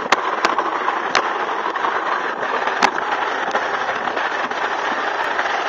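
Sled running down a concrete alpine slide track: a steady rushing scrape, with a few sharp knocks in the first three seconds.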